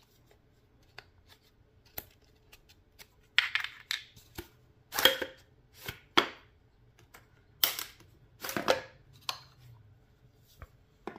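Direct-blowback carbine being taken apart by hand: a run of sharp clicks with several louder rattling, sliding noises as parts are pulled out, loudest about five seconds in and again near eight seconds.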